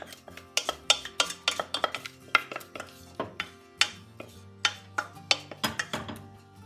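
Wooden spoon knocking and scraping against a stainless steel saucepan and a cast iron skillet as a thick bean mixture is scooped out and spread, a run of irregular sharp knocks that thin out near the end. Faint background music underneath.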